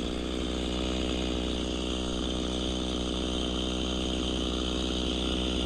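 Two-stroke chainsaw engine running steadily at an even pitch.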